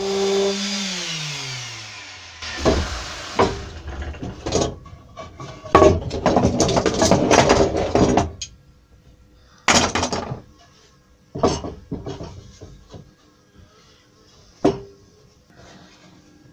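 A small power tool winding down, its pitch falling steadily over about two seconds. This is followed by several seconds of rough scraping and rasping, then scattered sharp knocks and clicks as wooden pieces of the gate are handled.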